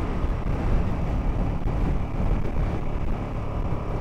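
KTM Super Duke GT's V-twin engine running at a steady cruise, mixed with wind and road noise.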